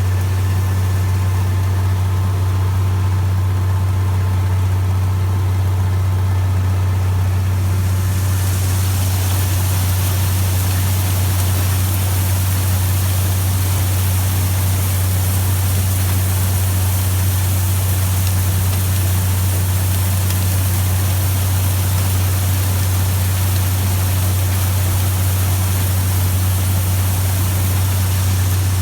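1964 Farmall 806's six-cylinder diesel engine running steadily while pulling a New Idea 324 corn picker and sheller at work, with a deep, unbroken engine hum. A steady high hiss joins about eight seconds in and carries on.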